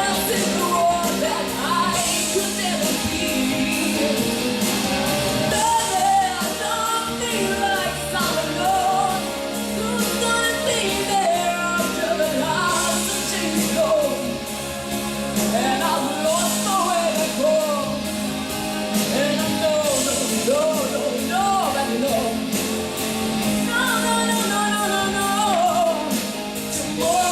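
Pop ballad accompaniment playing, with a wavering, bending sung melody line over it.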